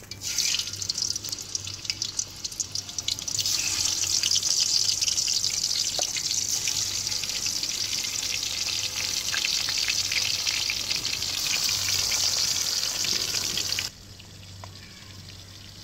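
Pieces of fish sizzling and crackling in hot oil in a wok. The sizzle starts as the first piece goes in, grows louder a few seconds in as more pieces are added, and cuts off suddenly near the end.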